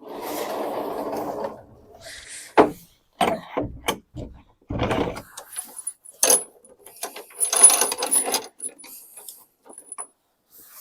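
Irregular knocks, clicks and scraping of objects being handled: a rustle at first, then a string of sharp knocks, and a scrape with a thin metallic ring near the end.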